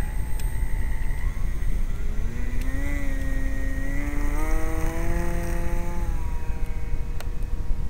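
Electric motor of a radio-controlled model airplane whining, its pitch rising slowly as it spins up, then stopping about six seconds in, over a steady low rumble.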